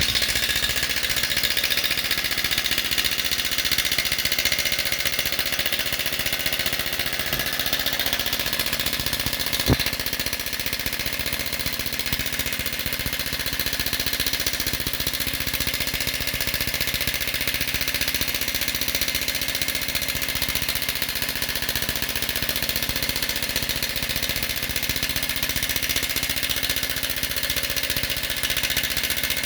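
Cordless impact wrench on its lowest setting hammering without a break, working a nut on a broken exhaust stud to back the stud out of a catalytic converter. One sharp click stands out about ten seconds in.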